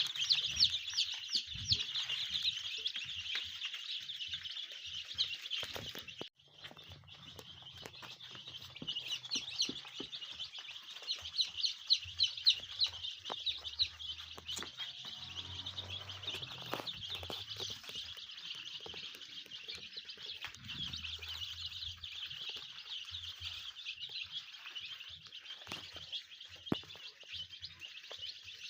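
A brood of day-old chicks peeping together, a dense, continuous chorus of high, short chirps. There is a brief break about six seconds in.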